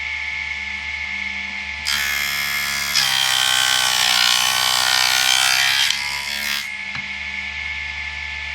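4-inch mini table saw running steadily, its blade cutting through a small test piece of wood for about four and a half seconds starting about two seconds in, the cut being the loudest part, before the saw settles back to its free-running hum.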